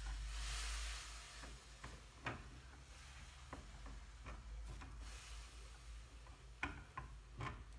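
A spatula clicking and scraping against a frying pan as food is stirred: scattered light clicks, with a faint sizzle in the first second.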